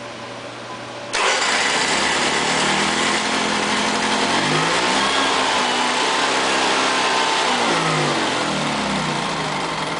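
Honda EV6010 generator engine catching about a second in and running, its speed wavering up and down. The choke is held open because the automatic choke tries to choke the hot engine and stops it from starting.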